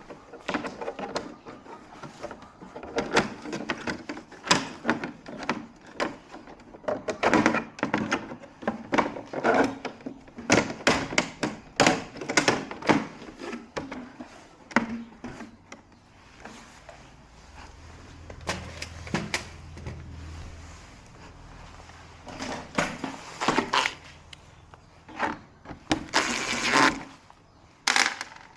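Irregular clicks, knocks and rattles of hard objects being handled, with a low hum for a few seconds around the middle.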